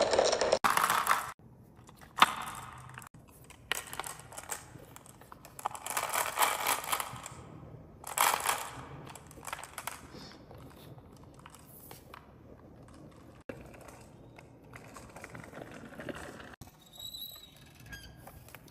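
Toys clattering and rattling in several separate bursts, louder in the first half and trailing off into lighter rattles.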